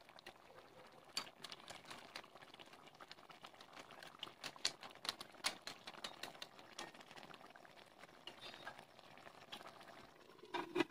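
Snail curry simmering in a pot: faint bubbling with irregular sharp pops and clicks. Near the end a metal pot lid is set on with a clank that rings on briefly.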